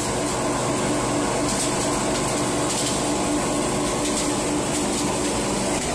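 Feed pellet cooler and the machines of the pellet line running: a steady mechanical hum with a fan's rushing air under it, while pellets pour out of the cooler's discharge.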